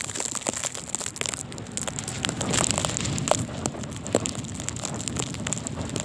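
Blizzard wind buffeting the microphone with a steady rumble, with many small clicks and crackles as wind-driven snow strikes it.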